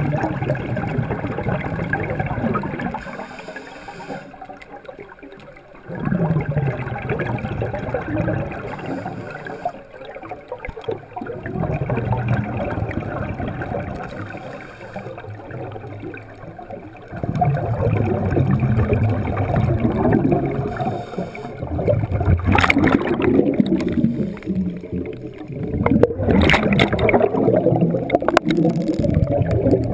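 Underwater bubbling and gurgling that swells and fades about every five seconds, the rhythm of a scuba diver's exhaled breaths. Two sharp clicks near the end.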